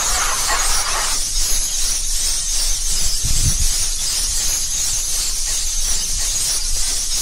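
Steady loud hiss over a low rumble, with a brief low thump about three seconds in.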